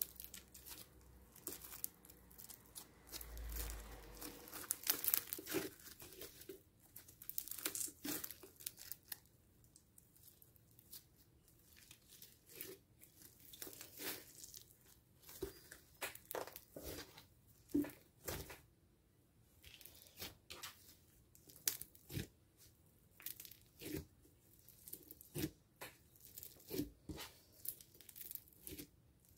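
Bubbly foam slime being squeezed, stretched and pressed by hand, giving irregular clusters of sharp, sticky crackles and pops.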